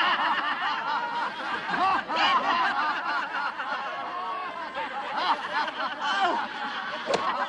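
A group of men laughing and chortling together, many voices overlapping in continuous peals of laughter, with a short sharp knock near the end.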